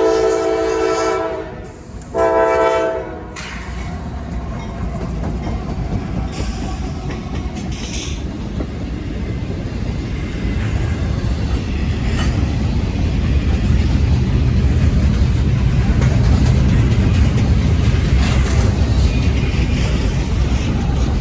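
Norfolk Southern freight train's locomotive horn sounding a chord as a salute, breaking off about a second and a half in, then one short blast. The train then rolls past at about 30 mph, a low rumble of wheels on rail that builds steadily louder, with occasional clicks.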